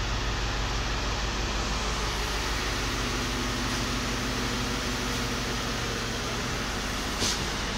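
A 2009 Cadillac DTS's 4.6 L V8 idling steadily, with one short click about seven seconds in.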